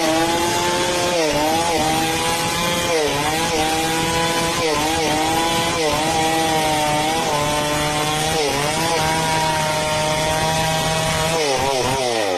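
Chainsaw at full throttle cutting wood into slabs, its engine note dipping briefly every second or two as the chain loads up in the cut. Near the end the throttle is released and the engine pitch falls away.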